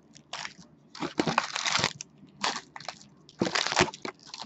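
Plastic wrapping of sealed jumbo baseball card packs crinkling as it is handled, in four short irregular rustles.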